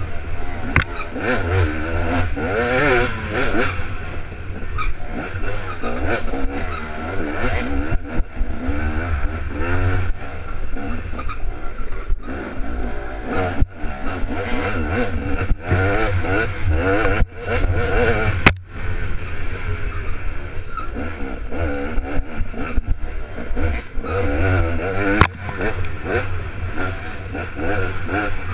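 Dirt bike engine heard from on board, revving up and down over and over as it is ridden. A heavy low rumble runs underneath, and the sound cuts out briefly a few times.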